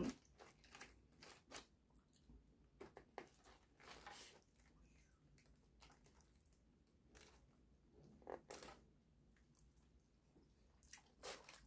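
Faint eating sounds: a plastic fork scraping and scooping food in a takeout container, with scattered soft clicks and quiet chewing.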